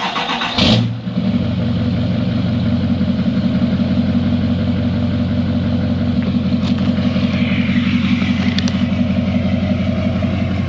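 L5P Duramax 6.6-litre V8 turbo-diesel cranking and catching about a second in, then idling steadily on its first start after an oil change, while the new oil filter fills and oil pressure builds.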